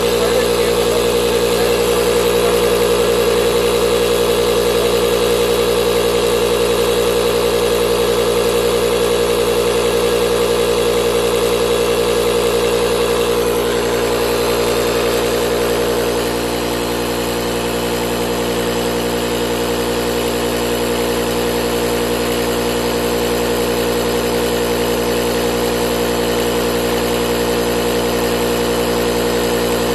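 Cordless battery-powered SUP inflator pump running steadily, its motor and fan giving a loud, even drone with a strong hum. The level drops slightly just past halfway, then holds steady.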